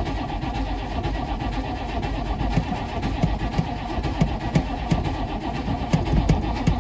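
Starter motor cranking a Chevy 6.5 L turbo diesel V8 with an even, rhythmic beat, turning it over without it catching: a no-start that the owner puts down to no fuel getting through to the engine.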